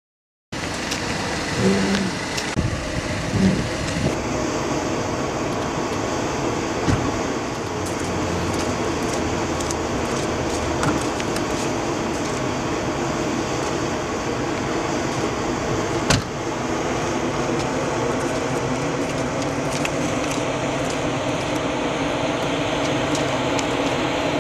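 Steady hum and noise of a car running, with a few scattered clicks and one sharper knock about two-thirds of the way through.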